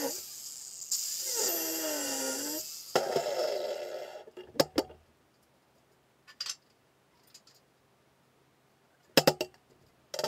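Angle grinder with a cut-off wheel cutting steel railroad rail, its pitch wavering and dipping under load, then winding down about three seconds in. Then sharp metal clinks: two around four and a half seconds in, and a quick cluster near the end.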